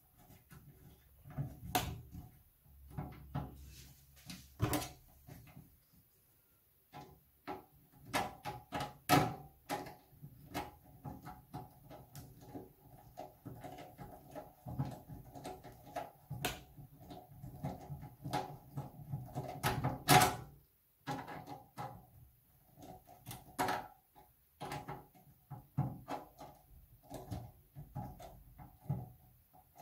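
A small screw being driven to fix a speaker into the IBM PC 5150's metal case, with irregular clicks, scrapes and knocks of the screwdriver and handled parts, the loudest knock about two-thirds of the way in.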